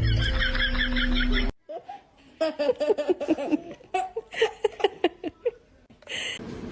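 A short run of chirpy repeating music cuts off abruptly. After a moment a person laughs in a string of quick, high-pitched bursts for about three seconds.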